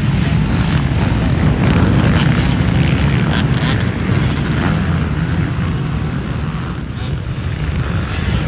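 Many motocross bike engines running hard together in a racing pack, a loud dense drone.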